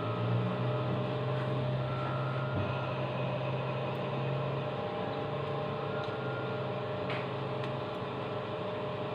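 Steady machine hum over an even hiss, with a few faint ticks.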